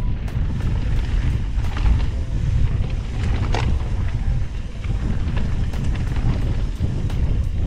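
Wind buffeting the microphone of a Trek Fuel EX 8 mountain bike descending a dirt trail, with the steady rush of the ride and small ticks and rattles from the bike. A sharper rattle sounds about three and a half seconds in.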